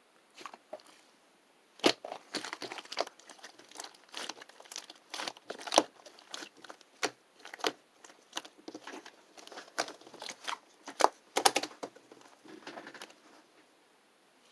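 Slime being squeezed and poked by hand, giving an irregular run of crackles, clicks and small pops.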